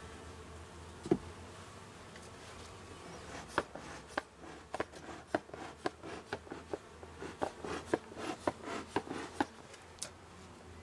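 Honeybees buzzing around an open hive during a frame inspection. From about three and a half seconds in, many bees zip close past the microphone in quick, loud passes. There is a single sharp knock about a second in.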